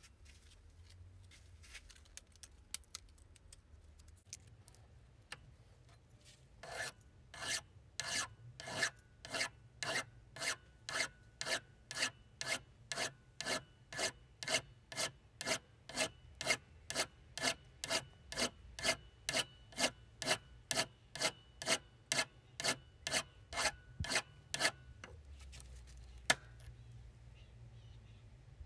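Steady, rhythmic hand scraping strokes, as of filing or scrubbing a part of an old hand-cranked grinder during its restoration, about two strokes a second. The strokes begin about seven seconds in and stop about twenty-five seconds in.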